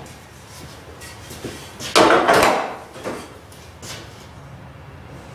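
A knock and a short scrape about two seconds in, with a few fainter clicks afterwards: a spirit level being set down and slid along the top of a wall cabinet.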